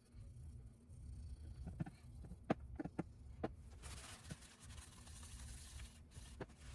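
Small clicks and light taps from hardware parts and tools being handled during the teardown of an electronic device, with a soft scraping or wiping hiss for about two seconds near the middle.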